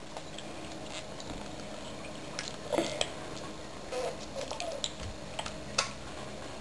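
Scattered light clicks and soft squishes of a goo-filled blob being handled and cut with a scalpel, irregular and quiet.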